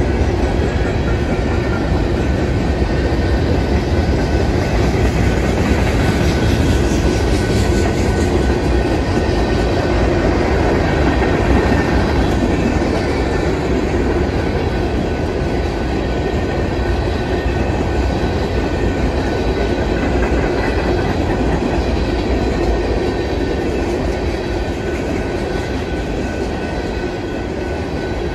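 Cars of a BNSF mixed freight train (boxcars, coal hoppers and tank cars) rolling past steadily on their steel wheels, easing a little near the end.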